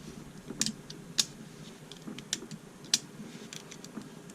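Sharp little metal clicks at irregular intervals, about six of them, from a cheap multi-tool pocket knife being handled while its small scissors are opened and tried.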